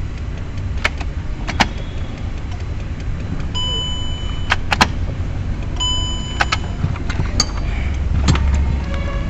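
Clicks from the key and controls inside a Volkswagen Passat, with two short electronic dashboard beeps about four and six seconds in, over a steady low rumble that grows louder near the end.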